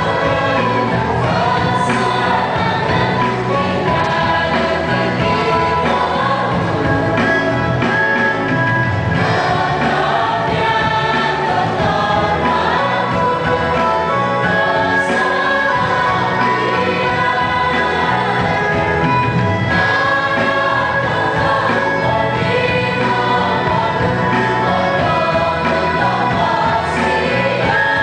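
Choir of men and women singing together, sung through a microphone, continuously and steadily.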